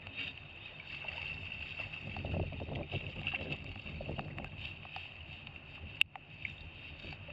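Water sloshing and lapping, with wind noise on the microphone and a single sharp click about six seconds in.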